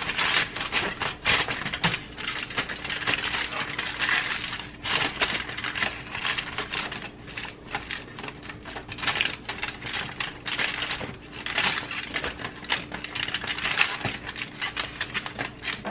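Aluminium foil crinkling and crackling continuously as hands fold and crimp its edges tight to seal a foil packet, with a faint steady hum underneath.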